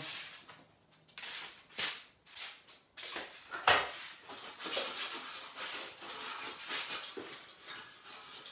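A few knocks and clatters as an air fryer basket is handled and set down, the loudest about three and a half seconds in, then a cloth rubbing over the basket as it is dried.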